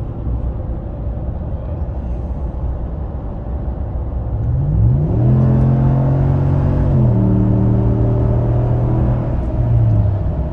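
5.7-litre Hemi V8 of a Ram 1500 with a VaraRam intake, heard while driving, with more intake sound than stock. It runs steadily, then about four and a half seconds in it accelerates, rising in pitch and getting louder. About seven seconds in the pitch steps down as the transmission upshifts, and near the end the engine eases off.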